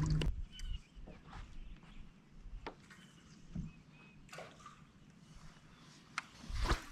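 Quiet open-air background with scattered light knocks and clicks and a few brief high chirps, and a louder short noise near the end.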